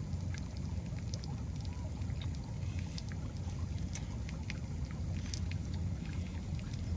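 A steady low rumble throughout, with light, scattered clicks and taps of a knife working food in a coconut-shell bowl.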